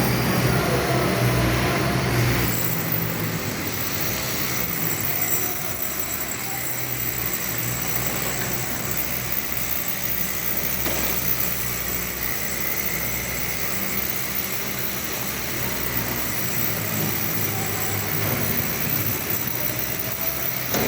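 Hồng Ký CUT100 plasma cutter cutting steel: a steady hiss of the air-plasma arc over a low hum, going on without a break.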